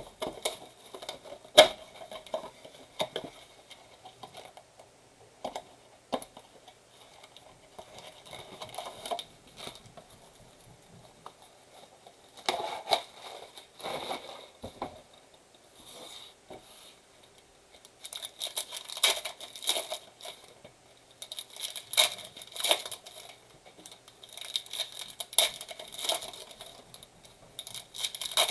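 Plastic wrap and foil card packs of a 2022 Prizm Football blaster box being torn open and crinkled, with scattered clicks and rustles of cards and packaging being handled. The crinkling gets busier in the second half.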